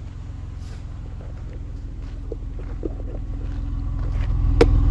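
2004 Chevrolet Impala's 3.4 V6 idling at the tailpipe with a steady, even exhaust pulse, getting louder as the microphone nears the pipe. The misfire is gone after new coil packs. A single sharp click near the end.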